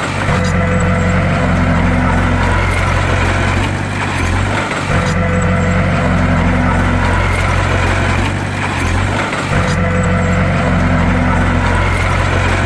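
Bulldozer's heavy diesel engine running steadily under load, a deep engine drone. The same stretch of engine sound repeats about every four and a half seconds.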